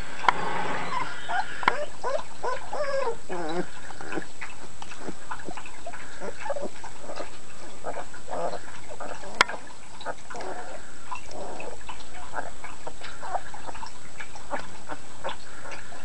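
Litter of puppies, just under three weeks old, whining and squeaking as they squirm together in a pile, with a run of wavering whines in the first few seconds. There is one sharp click about nine seconds in.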